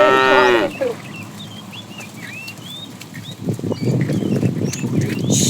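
A cow's long moo ends within the first second, then small birds chirp at intervals. In the last two seconds there is a loud low rustling noise among the herd.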